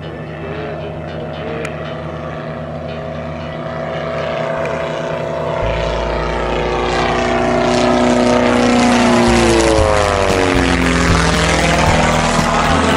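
Little Toot biplane's engine and propeller droning as it flies by, growing louder as it approaches; the pitch drops about ten seconds in as it passes overhead.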